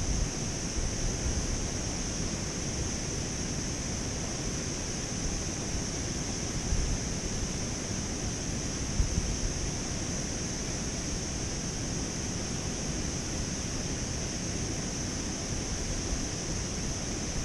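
Steady wind noise on the microphone over the rush of water flowing through a canal spillway, with a constant high hiss and a couple of brief bumps midway.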